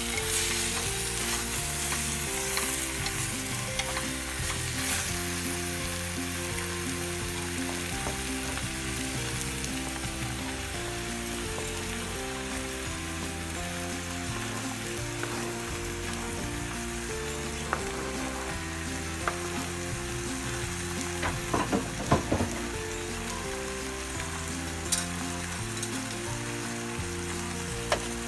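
Duck and tomato in red curry sizzling in an earthenware clay pot, a steady hiss. In the last third a few sharp clicks and knocks as vegetables are dropped into the pot.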